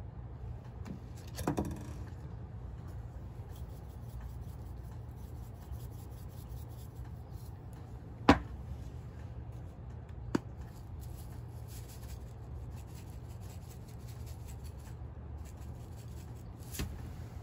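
Quiet handling sounds of buttering and seasoning a baked potato at a glass table: a brief rustle near the start, a sharp knock on the glass tabletop about eight seconds in and a lighter one two seconds later, over a steady low hum.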